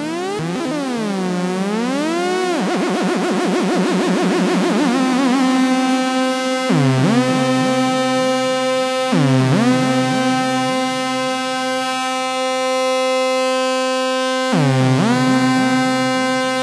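Arturia MiniBrute analogue synthesizer playing a buzzy, harmonic-rich tone. Its pitch first sweeps slowly up and down, then warbles quickly for a couple of seconds, then settles into held notes, with new notes swooping down into pitch three times.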